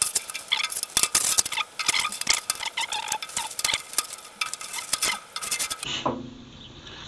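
Telescopic fishing pole (canne au coup) being extended, its sections sliding out with rapid scraping, squeaks and clicks, which stop about six seconds in.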